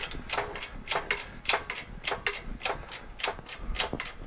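Hand-pumped bottle jack of a 20-ton shop press being worked stroke after stroke, a sharp click about three times a second, as the press pushes a wheel bearing onto an axle shaft.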